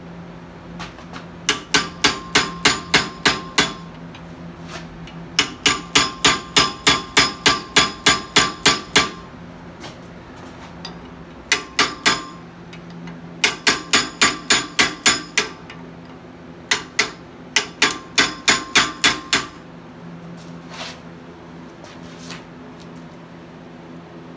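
Hand hammer striking a carving chisel into red-hot Damascus steel held in a vise, hot-carving the metal. The blows ring metallically and come about three to four a second, in five runs of a few seconds each with short pauses and one lone blow near the end. A steady low hum runs underneath.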